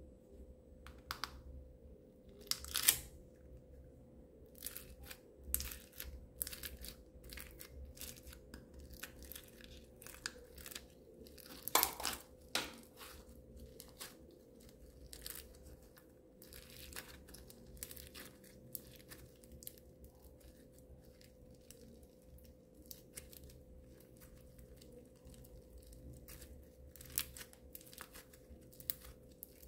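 Blue slime being squeezed, stretched and pulled apart by hand, giving an irregular run of crackling and popping clicks with a few louder pops.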